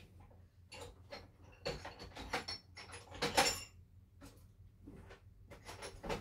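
Someone rummaging off-camera for tools: a string of irregular knocks, clicks and rustles, the loudest cluster about three and a half seconds in.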